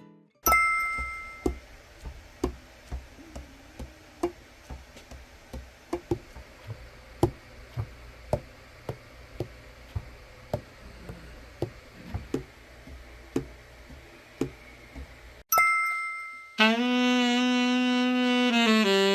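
A run of light, irregular taps, roughly one or two a second, opening and closing with a short two-tone chime. About three-quarters of the way through, a Selmer Mark VI tenor saxophone starts playing a long sustained low note, then steps down to a lower one near the end, as the overhauled horn is play-tested.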